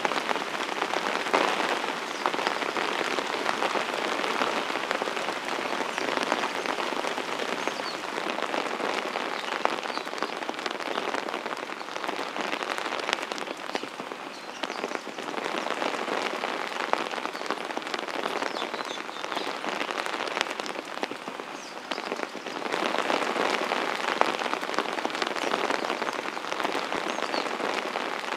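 Steady rain falling, a dense hiss of many separate drop hits, a little heavier near the start and again near the end.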